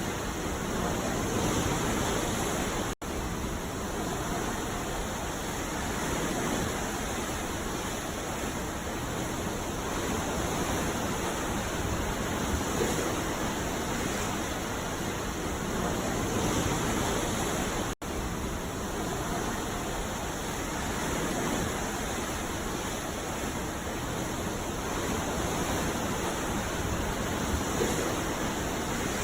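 Ocean waves breaking on a beach: a continuous surf wash that swells gently every few seconds. The sound cuts out for an instant twice, about fifteen seconds apart.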